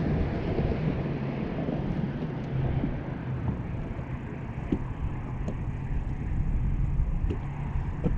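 Wind rumbling on the microphone, with a steady low hum underneath and a few faint ticks.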